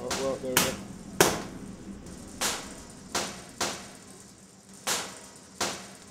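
Kitchen work at a counter: a series of sharp, heavy knocks, about seven, coming unevenly every half second to a second and a half.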